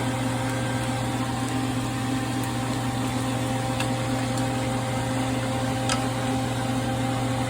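A steady machine hum with a low drone and a few fixed higher tones, holding an even level, with a couple of faint clicks about three and six seconds in.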